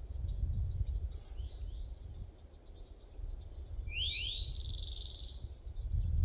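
A songbird calling: two quick rising chirps, then a pair of rising notes running into a steady, buzzy trill lasting about a second and a half. A low rumble runs underneath throughout.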